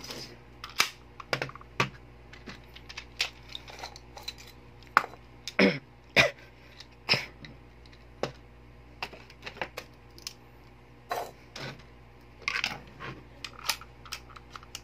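Irregular clicks and knocks of a spring-type airsoft M1911 pistol being handled and opened by hand, with its parts, magazine and tools tapped and set down on a wooden table.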